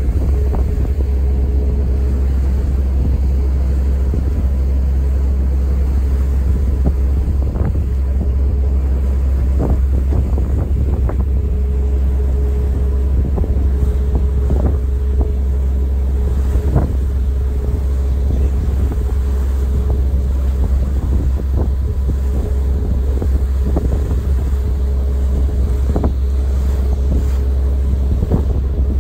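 Staten Island Ferry running, its engines a steady low drone, with wind on the microphone and a few scattered knocks.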